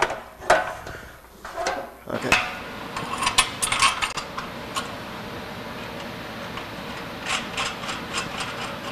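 Metal knocks and clinks of an exhaust pipe being pushed onto a catalytic converter's outlet and the joint's clamp hardware being handled. There are a few sharp knocks in the first couple of seconds, then bursts of quick clicks about three seconds in and again near the end.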